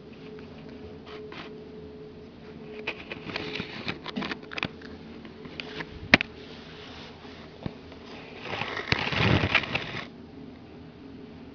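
Small dog moving about indoors: scattered taps and clicks and a sharp click about six seconds in, then a couple of seconds of rustling scuffle near the end, over a steady low hum.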